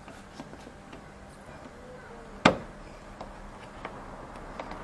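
A plastic push-pin rivet clip on a car's upper grille panel being worked out with a plier-type trim clip removal tool. There is one sharp click about halfway through, as the clip pops, and a few faint ticks of the tool against the plastic.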